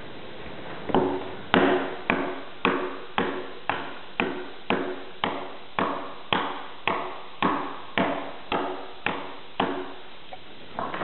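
Hand axe chopping into the end of a peeled log, hewing a corner notch for log-wall joinery: steady blows about two a second, each with a short woody ring from the log. The blows start about a second in and pause briefly near the end.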